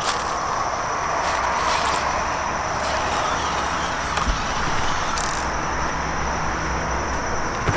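Electric RC rock crawler's motor and drivetrain whirring steadily while it crawls over rocks, with a steady high whine and a few faint ticks.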